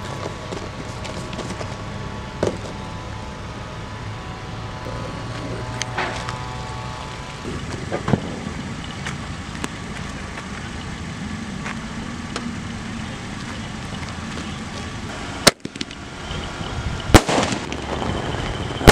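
500-shot firework cake going off about fifteen seconds in: a sharp bang, then a second bang a couple of seconds later followed by a dense run of crackling. Before it fires there is only a steady low background hum.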